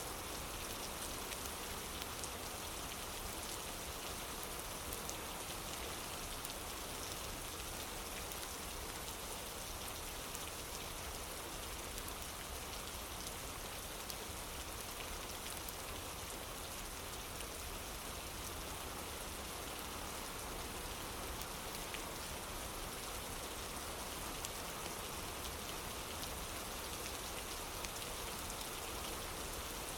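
Steady rain falling on a wooden porch: a dense, even hiss with scattered sharp drop ticks.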